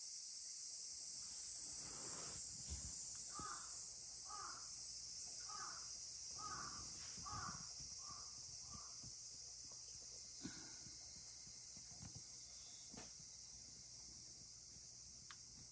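A steady, high-pitched insect chorus, with a bird calling about eight times in quick succession a few seconds in, plus a few soft thumps and rustles of handling.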